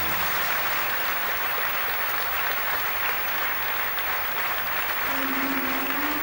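Audience applauding steadily. About five seconds in, a single low held note from the band's instruments comes in under the clapping.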